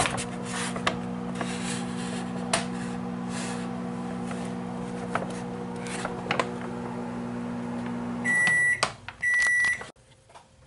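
Microwave oven running with a steady hum, with clicks and rustling of handling over it. About eight seconds in the hum stops and it gives two even half-second beeps, about a second apart, signalling that the heating cycle is done.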